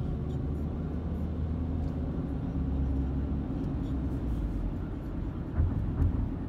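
Road and engine noise inside a moving car's cabin: a steady low rumble, with two short thumps near the end.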